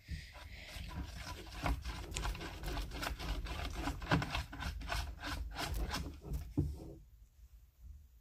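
Slime being mixed with a stick after activator has been added, a quick run of irregular scraping and rubbing against its container that stops about seven seconds in.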